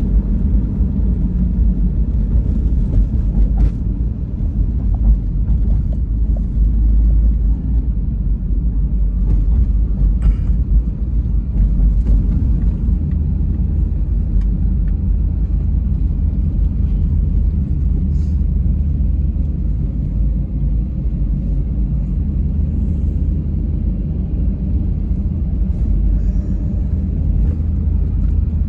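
Steady low road rumble of a car driving on a concrete highway, heard from inside the cabin: tyre and engine noise.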